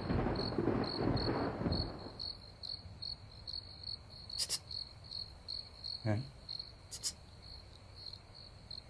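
Crickets chirping in a steady high pulse about three times a second. Footsteps rustle through undergrowth for the first two seconds, and a few faint clicks follow later.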